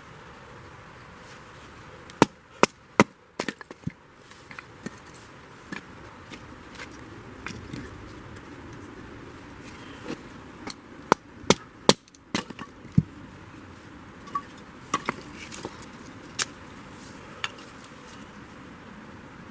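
Firewood being split with a blade: sharp wooden knocks in quick clusters of three to five strikes, with single strikes in between.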